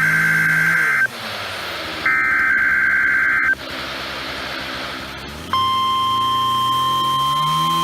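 NOAA Weather Radio Emergency Alert System test: two buzzy SAME digital header bursts, each about a second and a half long, with radio hiss between them. A little past the middle the steady 1050 Hz weather-radio warning alarm tone begins and holds.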